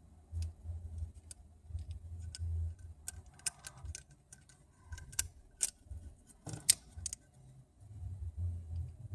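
Small metal tools clicking and tapping against iPhone 6 parts and tiny screws during a screen swap, in irregular light ticks that come thickest in the middle, with one sharper click a little before the end. A low rumble of handling comes and goes underneath.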